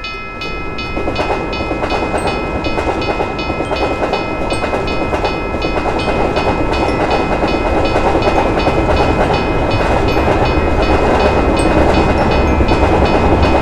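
Railroad crossing bell ringing steadily at about three strokes a second over the rumble and clatter of a passing train, which swells over the first couple of seconds and then holds.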